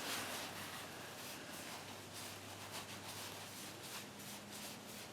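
Faint, soft handling sounds as the packing washers are worked onto the hydraulic ram's shaft, over a low steady hum.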